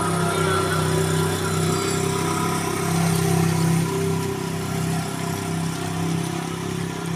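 A Honda motorcycle engine running steadily at low revs as the bike wades slowly through floodwater.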